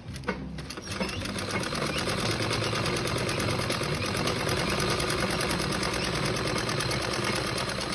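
Domestic sewing machine stitching at a steady speed, the needle going in a rapid, even clatter. It starts up about a second in.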